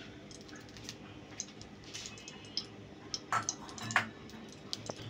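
Oil heating in an iron kadai over a gas flame, crackling with scattered small irregular pops and ticks, a few sharper ones a little past the middle.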